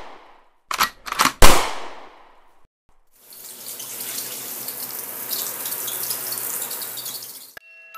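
A quick cluster of sharp bangs about a second in, the last and loudest ringing away. Then water pours and splashes steadily over a man's head and cuts off suddenly near the end.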